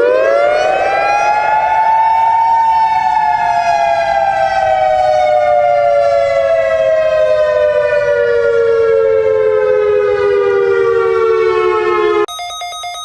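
Siren of an emergency alert alarm, winding up to its peak pitch in about two seconds, then slowly winding down for about ten seconds before cutting off abruptly. A repeating electronic beeping tone pattern follows near the end.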